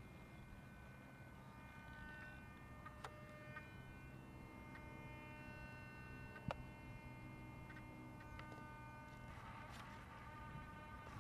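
Faint electrical hum and whine from the electric RC glider's onboard electronics, several steady high tones held together, with a few light clicks and a short rustle near the end.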